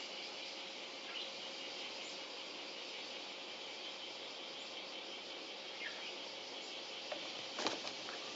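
A steady high-pitched insect drone, with a few faint bird chirps and a brief louder scratchy sound near the end.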